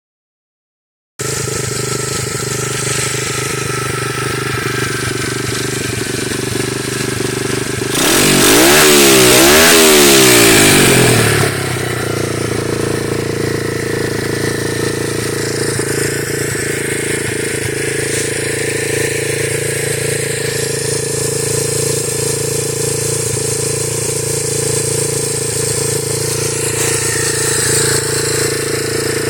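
2012 Orion 125cc pit bike's single-cylinder four-stroke engine idling steadily; about eight seconds in it is revved up and down a few times for about three seconds, then settles back to idle. The owner reports it runs well with no issues.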